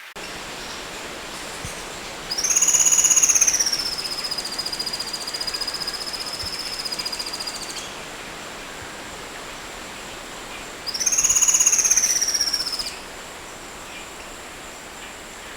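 Oriental magpie-robin singing two long, loud, buzzy trilled notes. The first swoops up, dips and then holds for about five seconds; the second, about two seconds long, comes after a pause. A steady hiss runs underneath.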